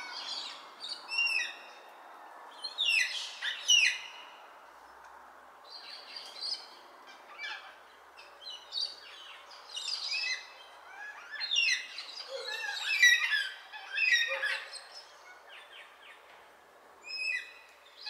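A feeding flock of Baudin's black cockatoos calling: short, repeated calls in clusters, loudest a few seconds in and again about two-thirds of the way through, over a faint steady hiss.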